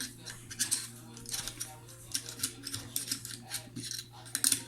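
AR-15 charging handle being slid back into the upper receiver: a string of sharp metal clicks and scrapes from the parts being handled and seated.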